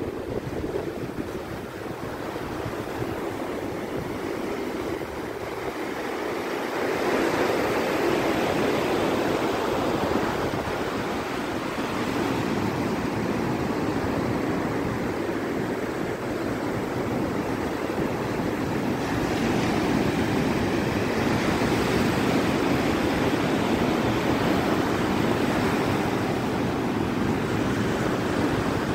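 Surf breaking and washing up a sandy beach: a continuous rushing that swells louder about seven seconds in and again near twenty seconds.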